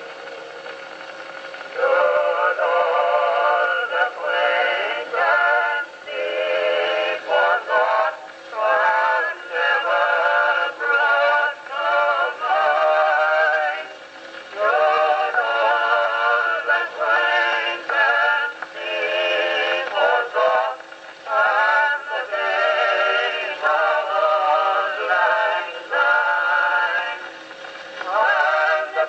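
Music: a man's voice singing in phrases of a second or two with short breaks between them, thin-sounding with little bass. The singing comes in about two seconds in, after a quieter opening.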